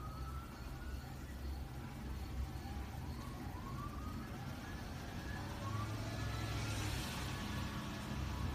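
Distant siren rising in short repeated sweeps over a steady low rumble of traffic, with a brief swell of hiss about seven seconds in.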